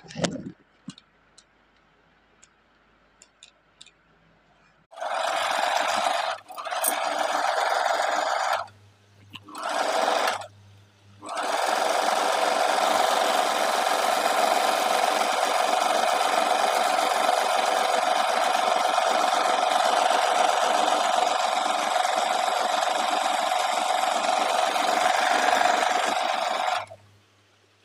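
Singer 2263 electric sewing machine stitching. After a few quiet seconds with faint clicks, it starts and stops in three short runs, then runs steadily at moderate speed for about fifteen seconds before stopping near the end.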